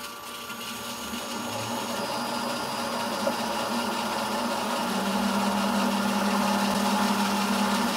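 Bridgeport milling machine's spindle motor running on a TECO L510 variable frequency drive, a steady machine hum that grows louder as the speed knob is turned up, with a deeper hum joining about five seconds in.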